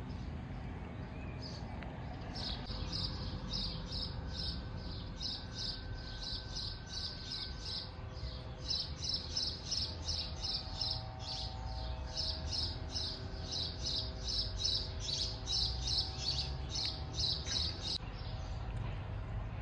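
A small bird chirping over and over, about four short high chirps a second, over a low outdoor rumble. The chirping stops suddenly near the end.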